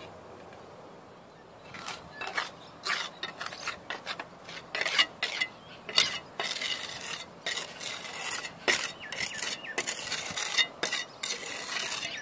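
A trowel working mortar on a tiled roof: a fast, uneven run of scrapes and metallic clinks that starts about two seconds in.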